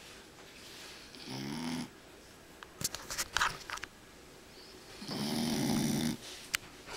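Five-month-old black Labrador puppy snoring in its sleep, sounding like a person snoring: two snores about four seconds apart, the second one longer. Between them come a few short sharp clicks.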